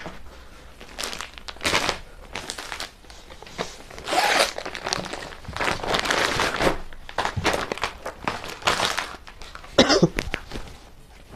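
Glossy catalogue pages being turned and plastic-wrapped suit packets handled: a series of short rustling, crinkling bursts.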